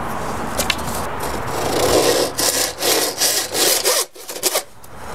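Handsaw cutting a small piece of wood with quick back-and-forth strokes, which stop about four and a half seconds in.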